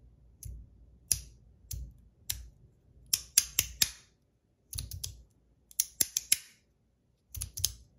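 YEZ Lets Race fidget slider, copper and stainless steel, being slid back and forth so it clicks at each end of its travel. The sharp metal clicks come in quick clusters of two to five, about once a second. The down clicks are louder than the up clicks.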